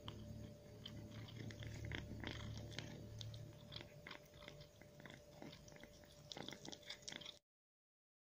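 A cat chewing and crunching food, a rapid run of small crunches and clicks that cuts off suddenly near the end.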